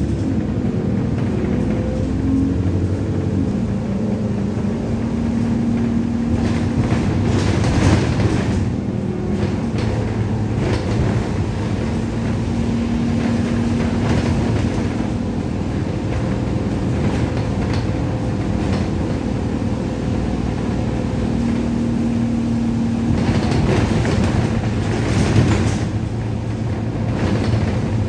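Alexander Dennis Enviro 200 bus under way, heard inside the cabin: its 6.7-litre diesel engine and Allison automatic gearbox hum steadily under the noise of tyres and road. The rushing road noise swells about eight seconds in and again around 24 to 26 seconds.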